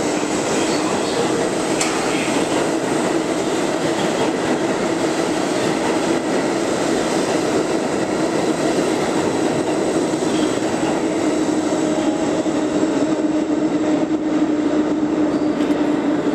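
New York City subway train (6 line) moving through the station: a steady rumble of wheels on rail with a low hum that grows louder over the last few seconds.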